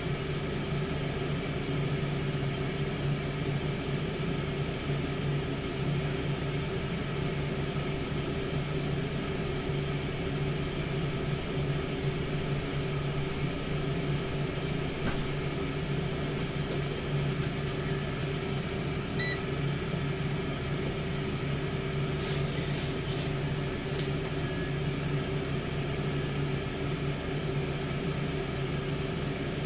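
Tower air fryer oven running with a steady fan hum. A few faint clicks and ticks come over it in the second half.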